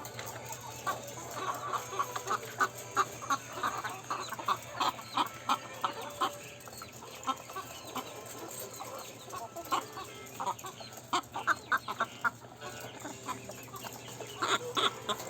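Chicken making short, hiccup-like clucks in quick runs, with quieter pauses between the runs.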